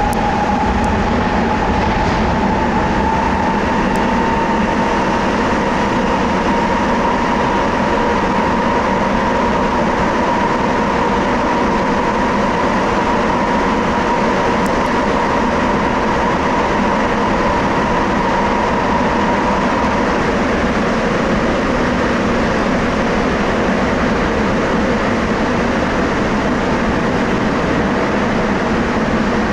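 Rubber-tyred Sapporo Tōhō Line subway train running through the tunnel between stations, heard from inside the car as a steady rumble. A high motor whine rises slightly and fades out about twenty seconds in.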